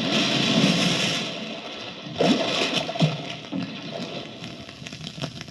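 Sound effect of a crash and watery splash: a loud rush of noise that surges again about two seconds in and once more a second later, then slowly dies away.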